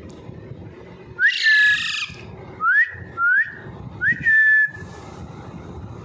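Young Alexandrine parakeet giving a run of short whistled calls, each sliding sharply up in pitch and then held. The first, about a second in, is the longest and loudest, and three or four shorter ones follow over the next few seconds.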